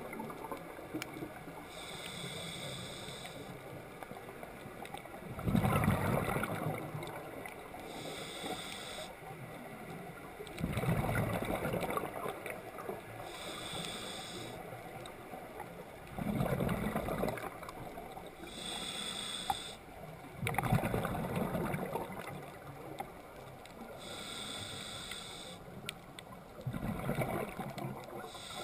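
Scuba diver breathing through a demand regulator. Each breath has a short hiss on the inhale, followed by a louder rush of exhaled bubbles. The cycle comes about five times, roughly every five and a half seconds.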